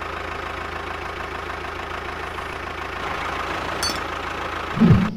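Tractor engine idling with a steady, rapid low putter, swelling into a brief loud low rumble near the end and then cutting off abruptly.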